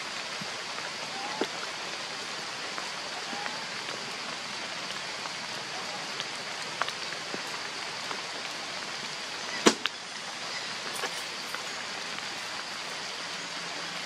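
Steady hiss of rain falling in forest, with a few faint ticks and one sharp click about ten seconds in, the loudest sound.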